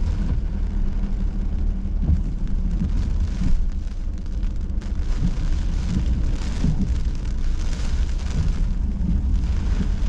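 A car driving in heavy rain, heard from inside the cabin: a steady low rumble of engine and tyres on a wet road, with rain beating on the car and hiss that swells and fades every second or two.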